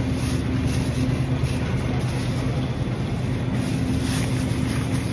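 Steady low mechanical hum with a faint hiss, holding even throughout: the background hum of a grocery store's refrigeration and ventilation.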